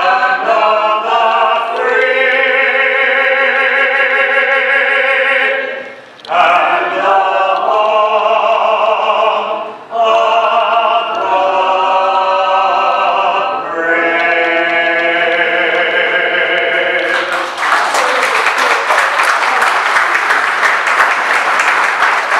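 A small group of voices singing long, held chords in close harmony, pausing briefly twice as the song closes. About three quarters of the way through, the singing gives way to the audience clapping loudly.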